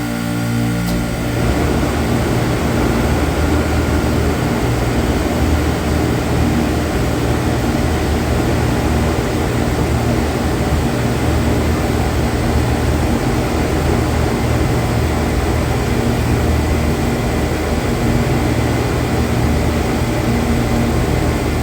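Trane split-system outdoor condensing unit running, its fan and compressor making a steady rushing noise with a low hum.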